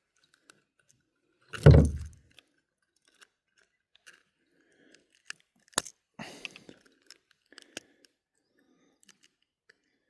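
Close handling noises while a lipless crankbait's hooks are worked out of a small pike's toothy mouth: scattered clicks and rustles, with one louder rustling thump about two seconds in and a sharp click near the middle.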